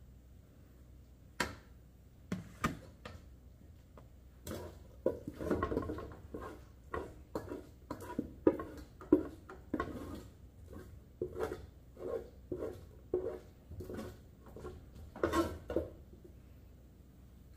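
A spoon scraping and knocking against a pot as macaroni and cheese is dished out into containers. A few sharp clicks come first, then a run of short, irregular knocks and scrapes.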